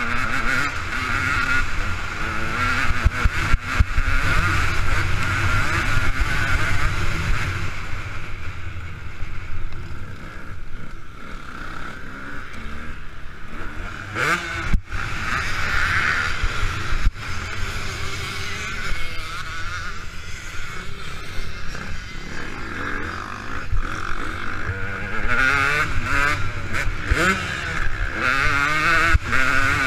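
KTM 200 EXC two-stroke enduro engine revving hard and easing off over and over as the bike is ridden around a dirt track, heard from a helmet-mounted camera. Its pitch climbs again and again, most plainly about halfway through and near the end, over a heavy rumble of wind on the microphone.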